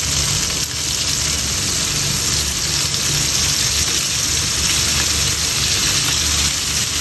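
Chicken strips sizzling in butter in a non-stick frying pan, a steady hiss, while they are turned over with tongs.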